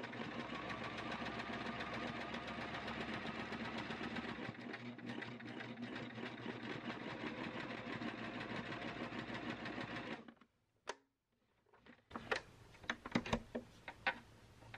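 Household electric sewing machine running steadily, its needle stitching through fabric in rapid strokes, back in working order after a problem. It stops suddenly about ten seconds in, and a few sharp clicks follow.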